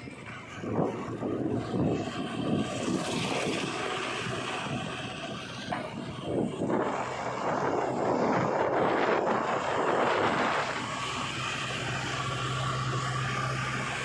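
JCB 3DX backhoe loader's diesel engine running as it drives along a road, heard through heavy wind buffeting on the microphone; a steady low engine hum comes through near the end.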